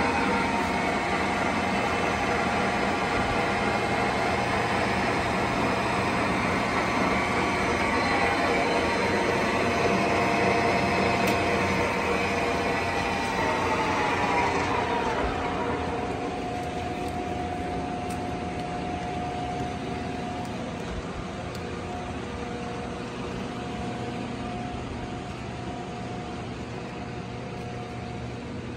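TOS SU100 engine lathe running under power, its headstock gearing giving a steady multi-toned whine. About halfway through the whine falls in pitch as the spindle winds down, leaving a quieter steady hum with one tone.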